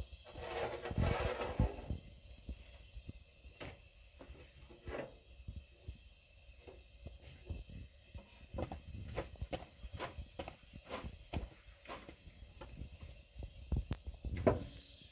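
Irregular knocks and clatters of objects being handled, with a short rustling scrape about a second in.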